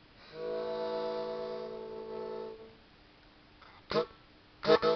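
A free-reed instrument holding one steady chord for about two and a half seconds, then a few short notes near the end.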